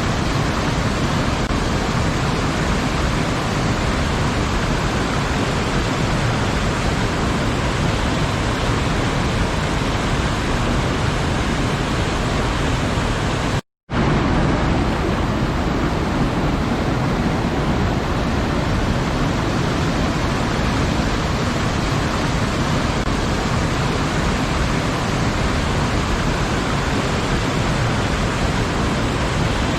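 Waterfall, a steady rushing of falling water. About fourteen seconds in it cuts out to silence for a split second, then comes straight back.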